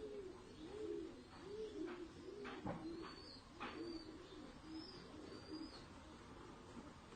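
A dove cooing: a low, soft note repeating about twice a second. From about three seconds in, short high chirps of a smaller bird join it.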